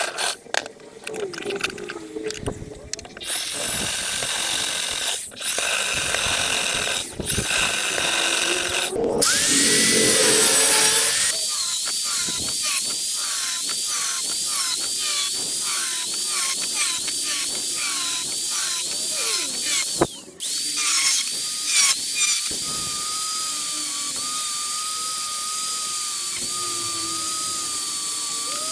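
Electric hand drill boring through steel square tubing in stop-start bursts for the first several seconds. Then an angle grinder with a thin cut-off disc cuts through the steel: its high whine dips and recovers about once a second as the disc bites, stops briefly about two-thirds of the way through, then holds steadier while cutting threaded rod.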